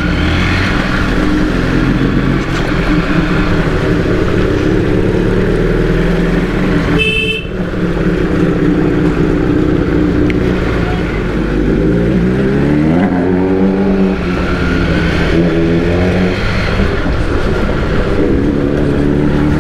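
Motorcycle engine running at road speed, its revs climbing and dropping several times past the middle, with a short horn beep about seven seconds in.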